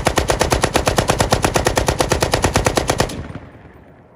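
Shortened RPK light machine gun (7.62×39 mm) firing one long full-automatic burst at about ten shots a second. The burst stops about three seconds in, and its echo dies away.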